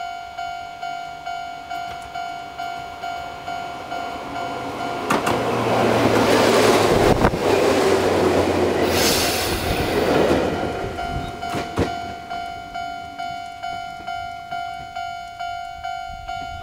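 Japanese railway level-crossing alarm, the old-type electronic bell, ringing about one and a half strokes a second while a Chichibu Railway 7800 series electric train passes over the crossing for several seconds, its wheels clacking over the rail joints. The bell cuts off near the end as the crossing clears.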